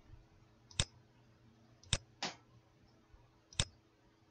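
Computer mouse button clicks: three sharp single clicks spread over the few seconds, with a softer brushing sound just after the second, over a faint steady hum.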